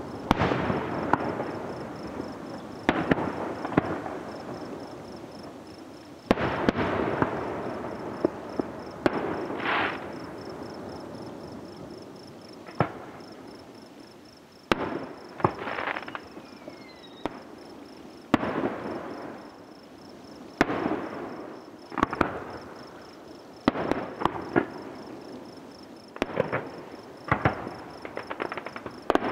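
Aerial fireworks shells bursting one after another, each sharp bang followed by a long rolling echo. The bursts come every one to three seconds, with a quicker run of cracking reports near the end.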